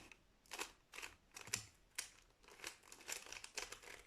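A 3x3 Rubik's cube being turned rapidly by hand, its plastic layers giving a run of short rasping clicks, about two to three a second.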